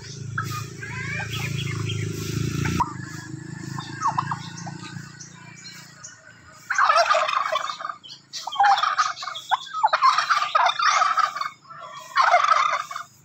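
Domestic turkeys gobbling loudly in about five rapid rattling bouts, each about a second long, starting about halfway through. A low hum runs under the first three seconds and cuts off suddenly.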